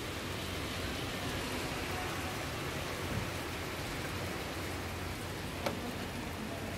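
Heavy rain pouring onto a paved street and the roofs of parked cars, a steady hiss, with a single sharp click near the end.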